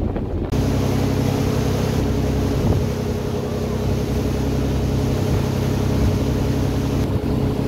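Tour boat's engine running under way, a steady drone with a few held low tones, over the rush and splash of its churning wake. It comes in suddenly about half a second in.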